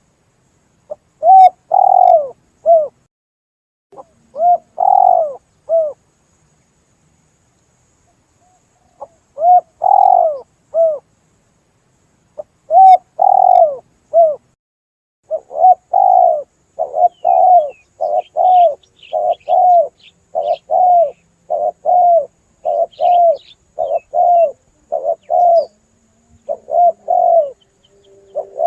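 Spotted dove cooing, as used for a hunting lure call: short phrases of a few coo notes with pauses between them, then from about halfway a faster, near-continuous run of coos. Faint high chirps from another bird come in during the second half.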